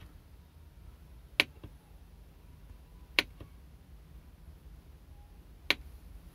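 Three sharp plastic clicks about two seconds apart, the first two each followed by a fainter click a moment later, from the centre knob of a CASKA CA 3631 car head unit being pressed and released.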